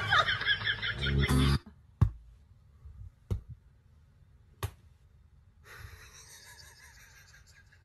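People's voices and laughter, cut off after about a second and a half. Then it is nearly quiet, with three sharp clicks a little over a second apart and a faint hiss near the end.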